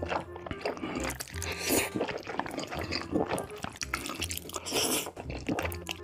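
Close-miked eating of black bean noodles (jajangmyeon): wet chewing of sauce-coated noodles, with a longer slurp about two seconds in and another near five seconds.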